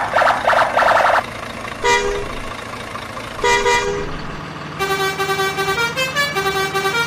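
Edited-in vehicle horn sound effects. A rapid buzzing rattle lasts about a second, then come two short double honks, and from about five seconds in a multi-tone horn plays a tune over a low drone.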